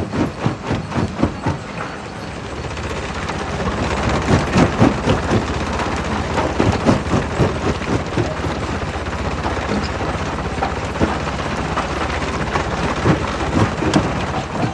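Jaw crusher breaking rock: stone cracking and crunching in a dense stream of knocks over a steady machine rumble. A rhythmic pulse of about three knocks a second in the first two seconds gives way to thicker, louder crunching.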